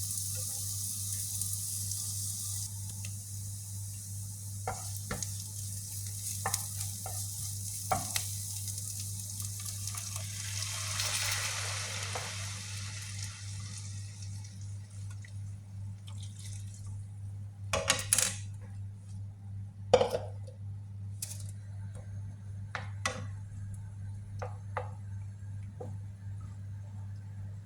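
Chicken meatballs sizzling in a frying pan, the sizzle dying away by about halfway through. This is followed by scattered clinks and knocks of a utensil against the pan and dishes, the loudest two a couple of seconds apart past the middle, over a steady low hum.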